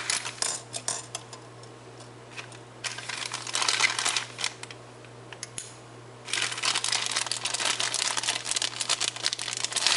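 Thin clear plastic bag crinkling in irregular bursts as it is handled, turning into almost continuous crinkling over the last few seconds as it is worked open.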